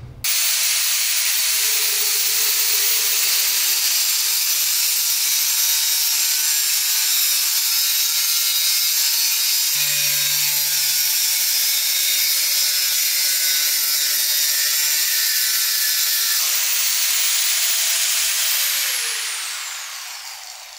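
Bosch GWS 800 angle grinder (800 W, 4-inch) cutting a 10 mm steel rebar with an abrasive cutting wheel: a loud, steady grinding hiss. The sound changes about three quarters of the way through, then the motor is switched off and winds down with a falling whine near the end.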